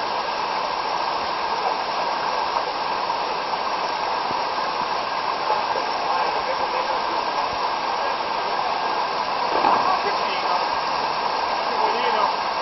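Mountain torrent's waterfall and white water rushing in a rocky gorge, a steady, loud roar of water.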